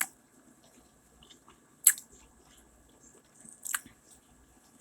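Close-up mouth sounds of someone eating fried chicken: chewing with three sharp crisp clicks about two seconds apart and a few smaller ones between.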